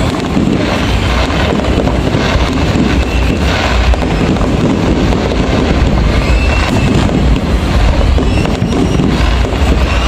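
Fireworks display: a steady barrage of aerial shells bursting one after another, dense booms and crackling with a continuous low rumble.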